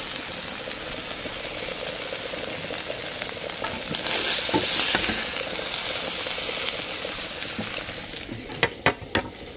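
Small boneless chicken pieces sizzling and being stirred in a hot kadai with no oil, cooking off the water they released on high heat. There are a few sharp knocks near the end.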